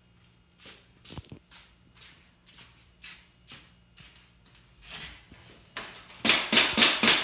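Rhythmic rustling strokes, about two a second, that build into loud, fast shaking noise about five times a second near the end.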